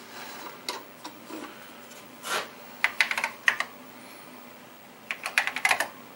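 Keystrokes on an Apple IIe's mechanical keyboard as a DOS 3.3 command is typed, in two quick clusters of clicks about three and five seconds in. A brief rustling scrape comes just before the first cluster.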